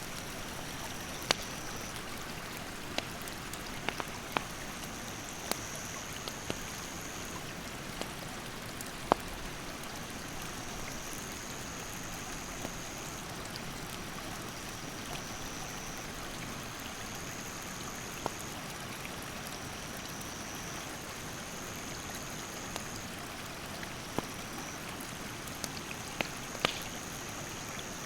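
Wood campfire crackling with scattered sharp pops over the steady rush of a mountain stream, with a high insect call trilling in stretches of a couple of seconds, stepping between two close pitches.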